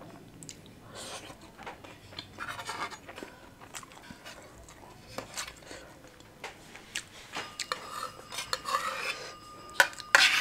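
Cutlery clinking and scraping on a plate in scattered light taps and short scrapes, with a sharper clatter near the end.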